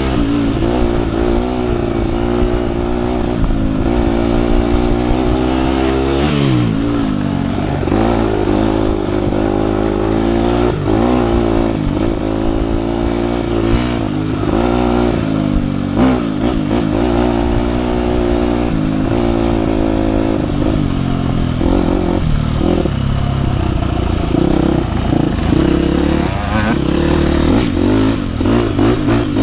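2007 KTM 250 EXC-F's single-cylinder four-stroke engine being ridden on a trail, its revs rising and falling over and over as the throttle is opened and closed.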